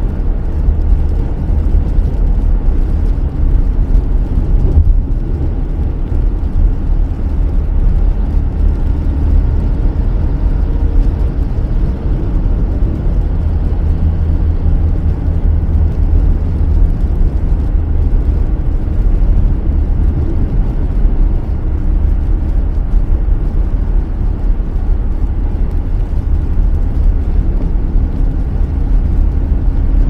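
Car driving on a wet road in the rain: a steady, deep road and engine rumble.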